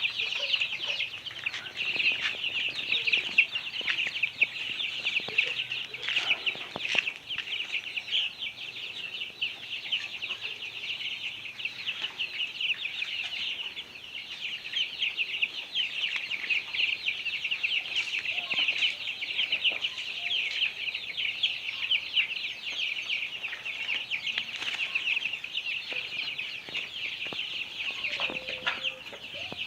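A flock of young chicks peeping continuously, many short high cheeps overlapping without a break while they feed.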